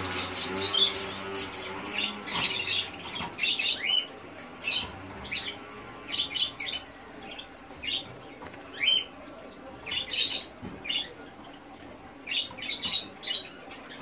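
Zebra finches calling while held in the hand: short, sharp rising calls, some single and some in quick clusters, scattered throughout. A low steady hum underneath stops about two seconds in.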